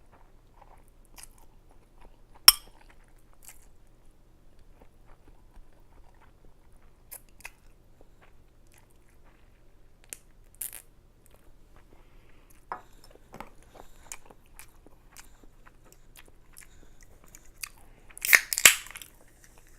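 Close-miked eating of ramen noodles: quiet chewing with scattered soft clicks, one sharp click about two and a half seconds in, and a louder noisy burst lasting about half a second near the end.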